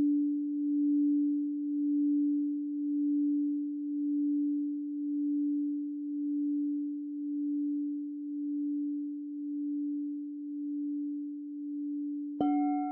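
An 8-inch D-20 Platinum crystal singing bowl rings on by itself in a steady, pure hum that swells and dips about once a second and slowly fades. Near the end the bowl is struck with a mallet, giving a sharp attack and bright higher overtones over the hum.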